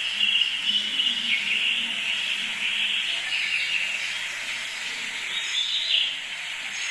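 A recording of many birds chirping and singing together, a dense unbroken chorus over a steady hiss.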